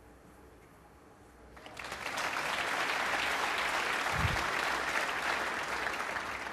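Snooker arena audience applauding a potted black. The applause swells up about two seconds in and begins to fade near the end, with a short low thump about four seconds in.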